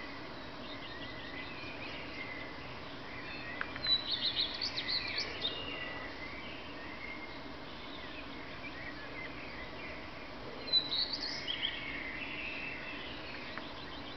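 Male common redstart singing two short song phrases, about four seconds in and again some seven seconds later, each a quick run of high clear notes breaking into a fast twitter. Fainter birdsong carries on in the background.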